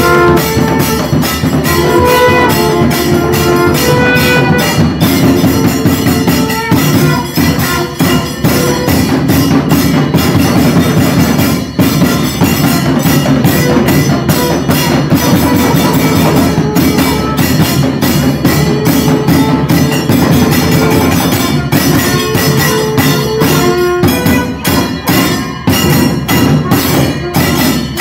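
Hand-held frame drums beaten in a fast, dense rhythm by a temple procession band, with a wind instrument playing a melody over the drumming.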